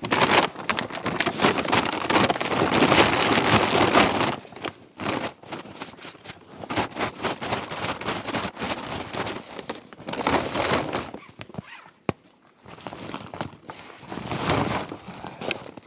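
Irregular rustling, crinkling and crunching of gear being handled and packed, busiest in the first few seconds.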